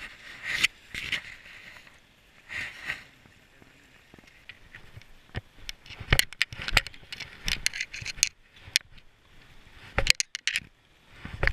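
Footsteps on a rocky shore: a few crunching steps on gravel, then from about halfway through, many sharp clicks, knocks and scrapes as boots and carried gear hit the boulders.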